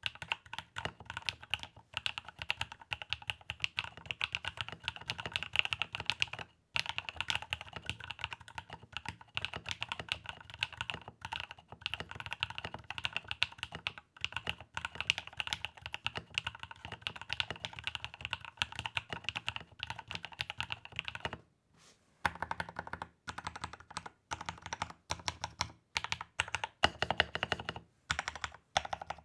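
Steady, fast typing on a Rama Works Kara SEQ2 mechanical keyboard fitted with 62g Moss switches, a polycarbonate plate, Infinikey keycaps and an internal dampener, with a brief pause about three-quarters of the way through.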